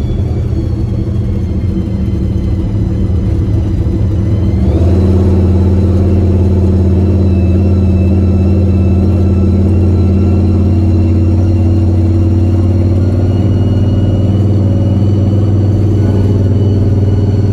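Supercharged big-block Chevy V8 on Holley Terminator X fuel injection, running steadily. About five seconds in it gets louder and settles at a slightly different pitch, then holds there.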